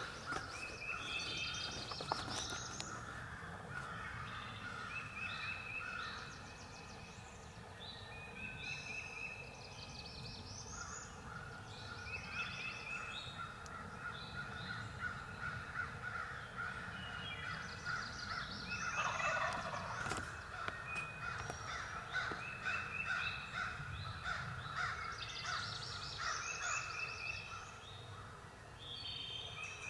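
Wild turkey gobbling among a dawn chorus of songbirds singing throughout.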